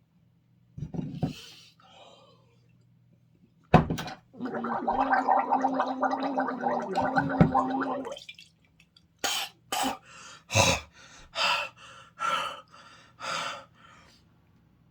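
A man gargling in his throat for about four seconds, then a string of about seven short, sharp coughs or gasps, reacting to a foul-tasting protein bar.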